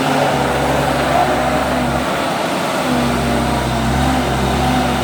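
JCB 155 skid steer loader's diesel engine running steadily under working load, its pitch shifting a little as the throttle and hydraulics vary.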